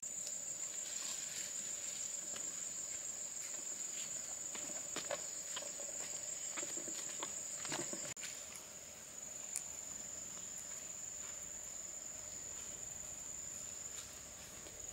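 Insects chirring in one steady, high, unbroken tone, with a few scattered light clicks and knocks.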